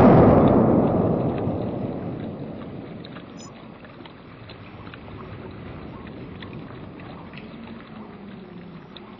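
The rolling echo of a gunshot dying away over the first three or four seconds, then a low background with faint scattered ticks and rustles in dry leaves as the shot wild boar kicks on the forest floor.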